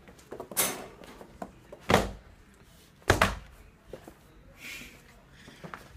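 Several sharp knocks and clatters from a wire dog crate as a poodle shoves its cushion out of it. The loudest come about two and three seconds in.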